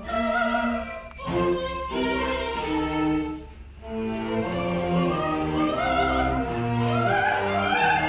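Live string ensemble playing sustained chords, with a soprano voice singing over it. Through the second half the soprano climbs in steps, each note held with vibrato.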